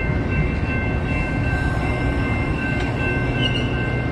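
Metra commuter train's stainless-steel bilevel cars rolling past: a steady rumble with a steady high-pitched whine over it.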